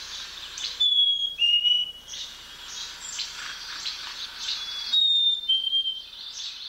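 Black-capped chickadee singing its two-note whistled fee-bee song twice, a higher note dropping to a slightly lower one, with rough chattering calls in between.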